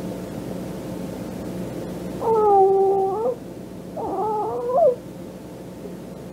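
Two drawn-out meow-like cries over steady cassette tape hiss and hum: the first held at one pitch for about a second, the second shorter and wavering, rising at its end.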